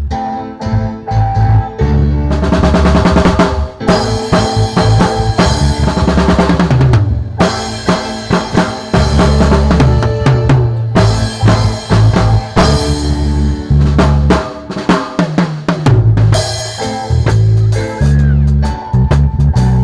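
Loud music led by a drum kit, with snare and bass-drum strokes over a strong low bass line.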